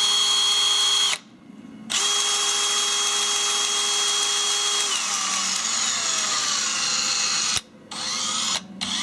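Makita cordless drill spinning a 3D-printed plastic helix shaft in its printed frame, the plastic parts running dry without lubricant. It runs with a steady whine, stops about a second in and starts again. From about halfway its pitch falls as it slows, then it stops, with a short burst and a restart near the end.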